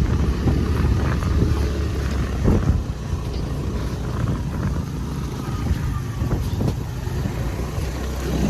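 Motorcycle engine running at low speed over a rough dirt road, a steady low drone with scattered knocks and rattles.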